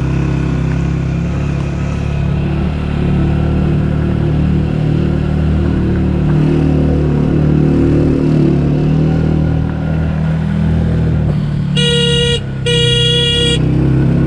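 Motorcycle engine running steadily while riding a gravel road, then two short horn blasts about 12 seconds in, sounded as a warning before a blind bend where oncoming traffic could appear.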